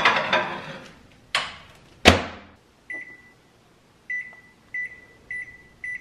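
Microwave oven being loaded and set: the plate and turkey rustle and scrape in, the door clicks and then shuts with a loud knock about two seconds in, followed by five short, high keypad beeps as a 60-minute cook time is entered.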